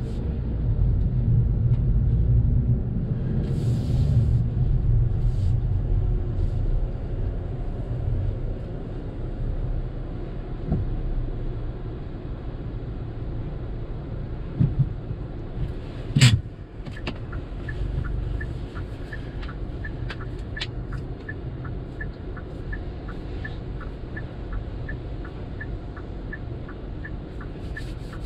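Low rumble of a car's engine and running gear heard from inside the cabin, heavier for the first several seconds and then settling to a steady idle. About two-thirds of the way through there is one sharp click, followed by a steady light ticking of about two ticks a second.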